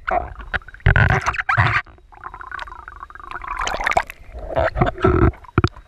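Water sloshing and gurgling around an action camera held at the surface while a snorkeller swims, in choppy, irregular splashes.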